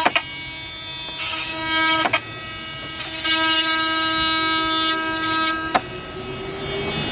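Oscillating multitool buzzing steadily as its blade cuts into maple stair nosing, with a cutting hiss that comes and goes and brief catches about three times. The blade is scorching the hardwood as it cuts.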